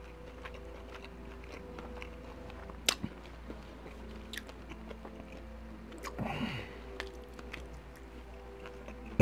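Close-miked chewing of a person eating, with soft mouth clicks and smacks and one sharper click about three seconds in. A short low hum of the voice comes about six seconds in.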